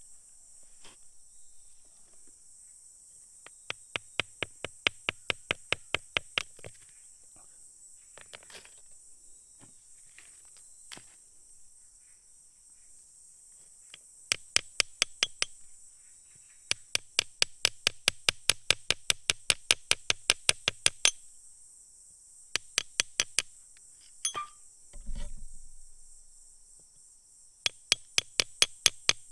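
A small metal-bladed tool scraping and picking at soft grey clay packed around a crystal, heard as quick runs of sharp clicks, about seven a second, each run lasting one to four seconds with pauses between. A dull low thump near the end.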